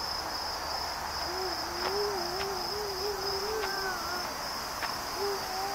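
A steady, high-pitched chorus of night insects such as crickets trills throughout. A low, wavering, hoot-like tone is held for about three seconds in the middle, and a few faint clicks sound.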